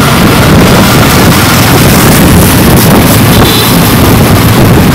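Honda Win motorcycle's single-cylinder engine running on the move, under heavy wind buffeting on the handlebar-mounted microphone.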